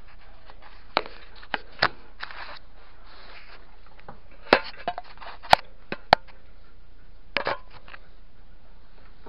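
Scattered sharp clicks and clacks of a dog harness and its buckles being taken down and handled, the loudest few near the middle.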